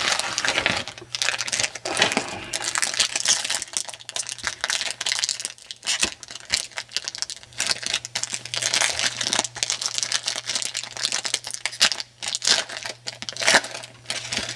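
Foil trading-card pack wrappers crinkling and tearing as packs of 2007 Donruss Threads football cards are opened by hand, an irregular run of crackles.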